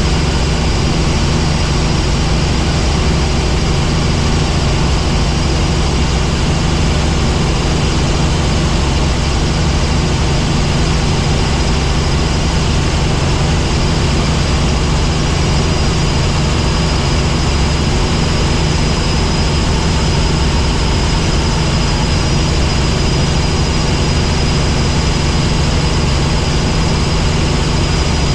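Helicopter in flight: steady, loud engine and rotor noise with a thin, high, steady whine over it.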